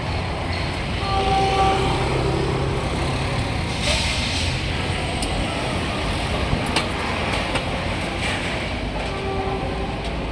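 Busy city road traffic: a steady roar of passing vehicles, with a brief pitched engine or horn tone about a second in.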